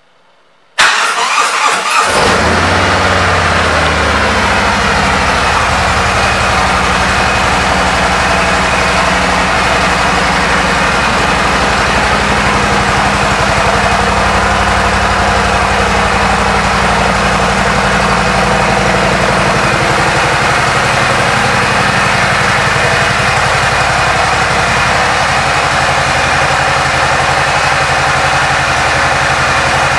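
A 2017 Harley-Davidson Road Glide's Milwaukee-Eight V-twin is cranked and catches about a second in, then idles steadily through its Vance & Hines exhaust.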